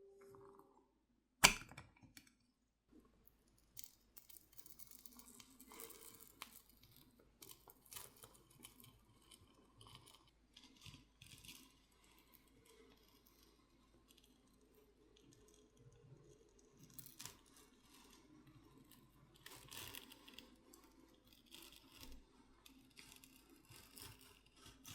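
A sharp click, then faint, scattered scraping and crackling as a pry tool works the tablet's glued screen loose from its frame, the softened adhesive tearing away.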